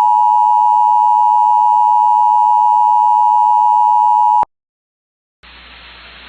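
Emergency Alert System attention tone: one loud, steady electronic beep near 1 kHz that cuts off sharply about four and a half seconds in. About a second of silence follows, then a faint steady radio hiss.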